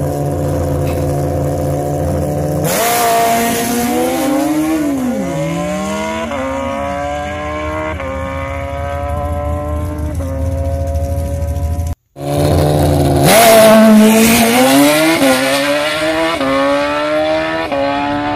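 Nitrous-fed Suzuki Hayabusa drag bike's inline-four engine holding steady revs on the start line, then launching about 3 s in and pulling away through quick upshifts, its pitch climbing and stepping down at each gear change. After a sudden cut, a second run follows the same way: steady revs, then a launch with rising pitch and gear changes.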